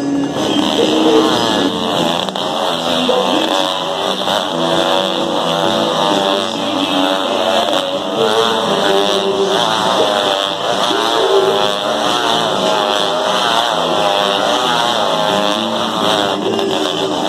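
Two motorcycle engines revving inside a steel-mesh globe of death, their pitch rising and falling over and over as the bikes loop around the sphere.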